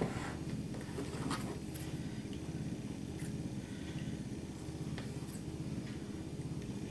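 Kitchen shears snipping through raw pie dough, a few faint short clicks of the blades, over a steady low hum.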